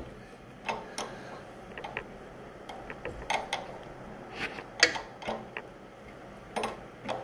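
Open-end wrench clicking against brass fittings as they are tightened on a pressure washer pump: scattered, irregular metal clicks and taps.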